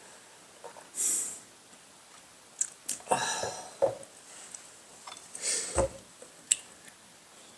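Dinner-table sounds: a sip from a glass, then scattered light clicks and knocks of a glass and chopsticks on dishes and the wooden table, with one dull thud about six seconds in.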